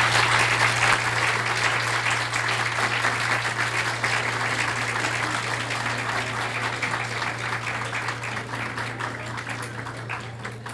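Audience applauding: a long round of clapping that slowly dies away toward the end.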